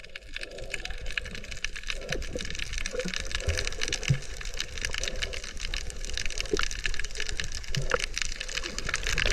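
Water sound recorded underwater on a scuba dive: a dense, continuous crackle with a low rumble and occasional soft pops, growing slowly louder.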